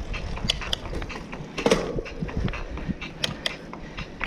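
Riverside hybrid bicycle's drivetrain clicking and creaking under hard pedalling uphill, with irregular sharp clicks from the chain and gears.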